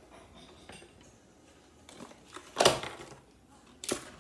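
A few knocks and clatters of small hard objects being handled and set down. The loudest comes about two and a half seconds in, and another sharp one near the end.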